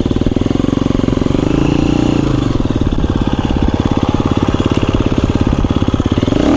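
Dirt bike engine running close to the microphone at low, fairly steady revs while riding slowly, its firing pulses even throughout, with a slight change in revs about two seconds in.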